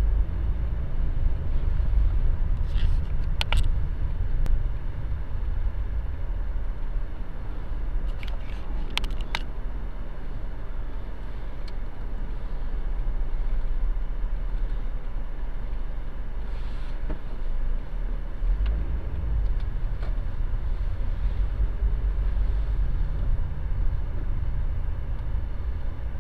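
Low, steady rumble of a car's engine and road noise heard from inside the cabin as it drives slowly in traffic, with a few sharp clicks about three seconds in and again about nine seconds in.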